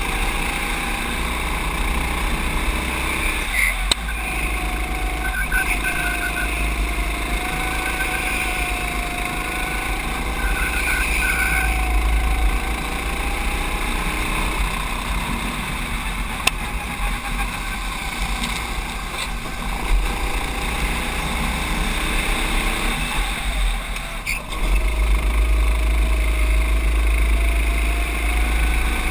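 Racing kart engine at racing speed, picked up by an onboard camera, its pitch rising and falling through the corners. The note drops away briefly twice, about four seconds in and again near the end, then picks back up. Wind buffets the microphone throughout and gets louder in the last few seconds.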